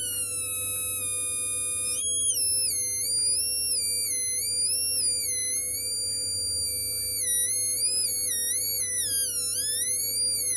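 Two-transistor BC547 buzzer circuit sounding through a small speaker: a continuous, high-pitched electronic tone that glides and steps up and down in pitch, wavering quickly near the end, over a steady low hum.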